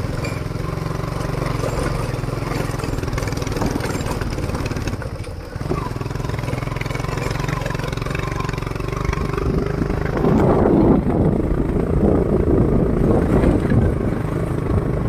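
Motorcycle engine running steadily while riding over a rough gravel track, dipping briefly about five seconds in and getting louder from about ten seconds in.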